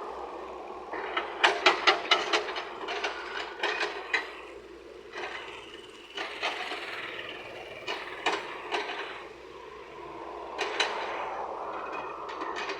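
Excavator at work: the engine runs steadily while the bucket scrapes and knocks against soil and stones, with several clusters of sharp clacks.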